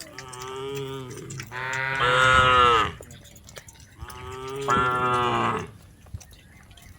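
Cattle mooing: two long drawn-out calls, the first swelling louder partway through, the second starting about four seconds in.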